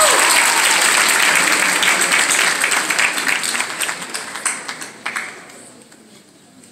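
Theatre audience applauding, a dense patter of clapping that thins out and dies away about five seconds in.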